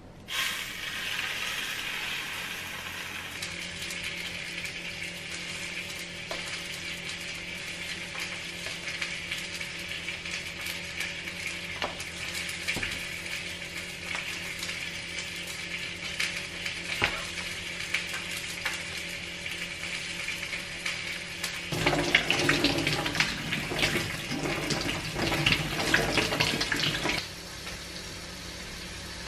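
Salmon fillet sizzling in a hot non-stick pan, starting the moment it is laid in and frying steadily. About three-quarters through, a louder, busier stretch of sizzling and clatter lasts about five seconds, then cuts off suddenly.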